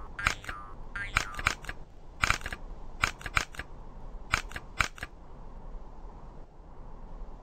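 A string of sharp, dry clicks and taps, about a dozen in small irregular groups, stopping about five seconds in: cartoon sound effects for animated desk lamps hopping and moving their jointed arms.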